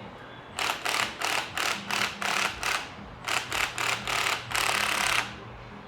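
Power wrench run in a rapid series of short bursts, about three a second, ending in one longer burst of about three quarters of a second near the end, while struts are being swapped for coilovers.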